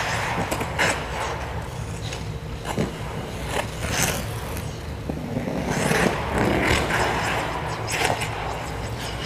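Figure skate blades scraping and carving on ice, a string of irregular pushes and scrapes as the skater strokes and turns into spins, over a steady low hum.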